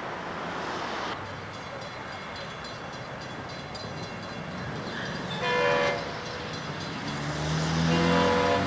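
Diesel locomotive air horn of an approaching Florida East Coast Railway train sounding for a grade crossing: a short blast about halfway in, then a longer blast near the end over a rising rumble of the train.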